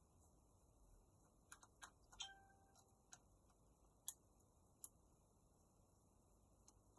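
Faint, scattered small clicks and ticks from small hand tools working on a smartphone's internal parts during a teardown. There is a little cluster of clicks about two seconds in, then single ticks near three, four, five and seven seconds, over near silence.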